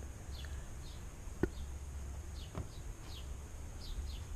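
Small birds chirping repeatedly with short falling calls. Two sharp knocks stand out, the first and louder about a second and a half in, the second about a second later. Under it all runs a low steady rumble.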